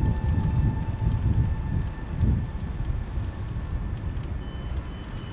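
Distant fireworks bursting: an uneven low rumble with faint scattered crackles, mixed with wind on the microphone.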